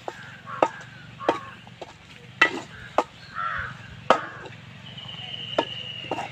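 A metal ladle clinking and scraping against a large metal cooking bowl as food is stirred over a wood fire, a sharp clink about once a second.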